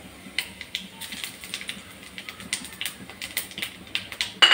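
Fennel seeds frying in hot oil in a non-stick kadai, crackling with irregular small pops, several a second. A louder clink comes right at the end.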